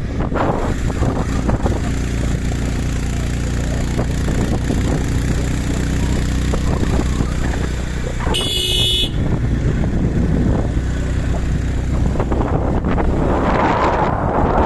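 Motorcycle engine running steadily while riding, with a vehicle horn honking once for under a second about eight seconds in. Wind noise on the microphone rises near the end.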